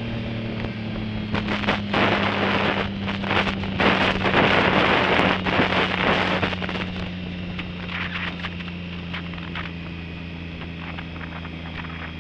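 Motorcycle engine running steadily at cruising speed while riding, with heavy wind buffeting on the microphone that swells loudest from about two to seven seconds in and then eases off.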